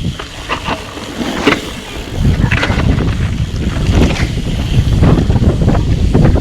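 Wind buffeting the microphone of a mountain bike descending a dirt trail, with tyres crackling over loose ground. The wind rush eases for about the first two seconds, then comes back strong.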